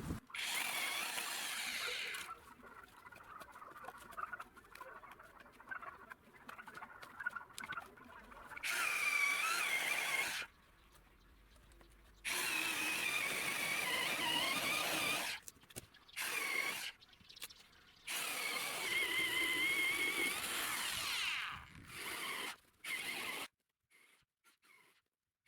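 Electric power tool running in four separate stretches of a few seconds each, its high whine wavering in pitch, with abrupt cuts and quieter clatter between.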